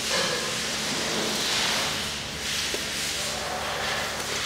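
Crankshaft, connecting rods and pistons of a bare Hyundai G4KE 2.4 engine block turned over slowly by hand, a soft hissing, swishing noise that swells a few times. Nothing knocks or scrapes: the newly fitted piston oil-cooling jets clear the connecting rods.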